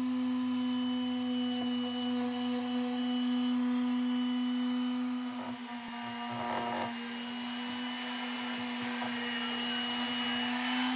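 Corded jigsaw running steadily as it cuts through a whiskey barrel's wooden staves, its motor whine holding one pitch. The sound falters and rattles briefly about six seconds in, then settles again.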